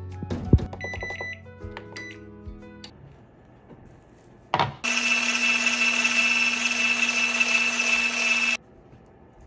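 Background music for about three seconds. Then an electric hand mixer with a wire whisk runs steadily for about four seconds, whisking custard ingredients in a plastic jug, and cuts off suddenly.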